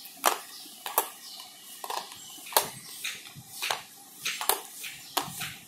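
Marbles clicking and knocking on a plastic Brainvita (marble peg solitaire) board as they are jumped and set down: a series of sharp, irregularly spaced clicks, about eight in all.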